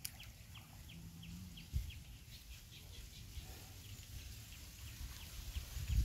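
A small bird chirping over and over, short falling chirps about two a second, with a few higher calls near the end. Under it runs a low uneven rumble, with a thump about two seconds in.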